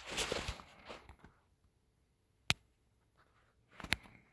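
A phone being handled: about a second of rustling, then a single sharp tap about two and a half seconds in and a couple of quick taps near the end.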